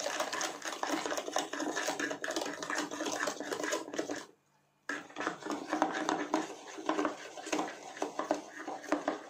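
Metal spoon beating a wet batter in a ceramic bowl, with rapid clinking and scraping against the bowl. There is a brief silent gap a little before the middle, then the beating carries on.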